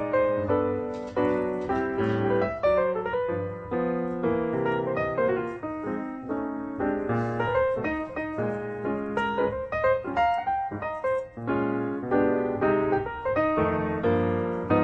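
Background piano music, a quick run of plucked-sounding notes with a busy, bouncy rhythm.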